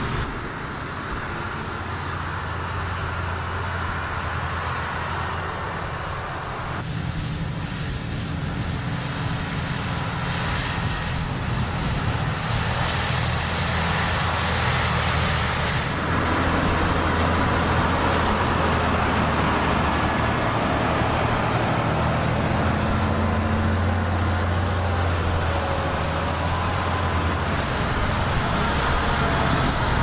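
Large Fendt tractors' six-cylinder diesel engines running steadily under load while pulling scraper levellers through loose ploughed soil. The engine note shifts abruptly about 7 and 16 seconds in.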